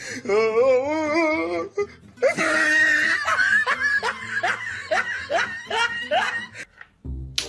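People laughing over background music. A warbling giggle comes near the start, then a longer bout of rhythmic, repeated laughter that stops about a second before the end.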